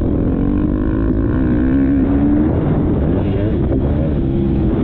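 Motocross bike engine running hard under a rider, heard from a helmet-mounted camera, with wind buffeting the microphone. The engine pitch climbs for about two seconds, drops back, then rises and falls again as the rider works the throttle.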